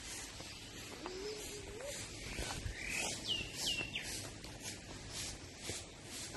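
Animal and bird calls: a wavering, rising call lasting about a second, then a few short descending chirps around the middle, over high chirping that repeats about twice a second.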